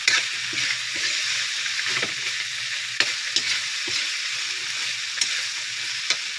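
Wild pig meat with peppers and tomato sizzling in a metal wok as it is stirred with a metal utensil: a steady sizzle broken by several sharp clinks and scrapes of metal on the pan.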